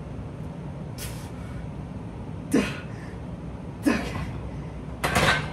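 A lifter's short strained grunts while pressing a loaded barbell on a bench, two of them a little over a second apart, each falling in pitch, then a louder, noisier burst near the end as the set finishes.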